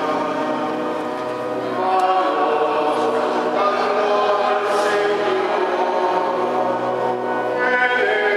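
Choir and congregation singing the opening hymn of a Mass, in slow, held notes.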